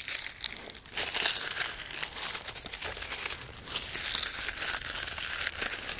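Dry forest litter crinkling and crackling close to the microphones, a dense run of small crackles, offered as an ASMR trigger.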